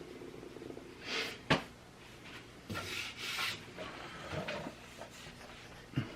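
Hand-handling noises on workshop hardware: several short rubbing and scraping swishes, with a sharp click about a second and a half in.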